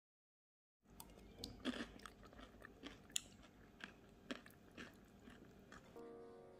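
Faint chewing of crunchy food, irregular crisp crunches and clicks that start a little under a second in, after a silent gap.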